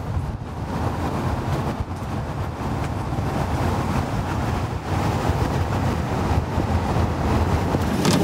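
Steady road and wind noise from a campervan driving along a road, mostly a low rumble.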